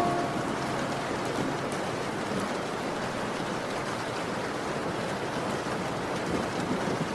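Steady rain falling: an even hiss with no music over it. The last musical note dies away right at the start.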